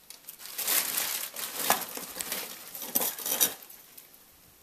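Packing material crinkling and rustling, with sharp clicks and light clatter of small items being handled, for about three and a half seconds before fading out.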